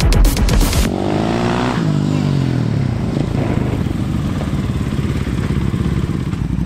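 Motorcycle engine coming in off the throttle, its note falling, then running at low revs with a steady throb as the bike rolls slowly up. The tail of a music track with a heavy beat plays for about the first second.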